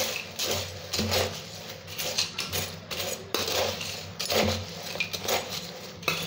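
Steel spoon scraping round a stainless steel bowl, tossing crisp fried boondi and peanuts together, with repeated scrape-and-rattle strokes about twice a second.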